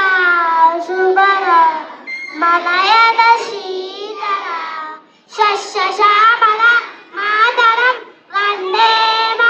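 Young children singing a song in high voices, in phrases of two to three seconds with brief breaks between them.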